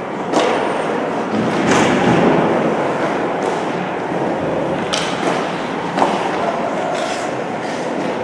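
Game sounds during play: a steady din with several sharp knocks and thuds at irregular moments, the sharpest about a third of a second in and about six seconds in.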